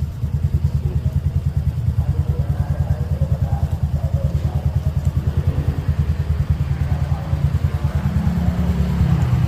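Motorbike engine idling with a steady, rapid putter, with faint voices in the background; about eight seconds in, an engine note rises a little higher.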